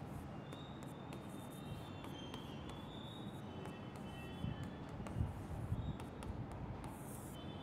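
Faint pen squeaks and small taps on a writing board as words are written, over a low steady hum.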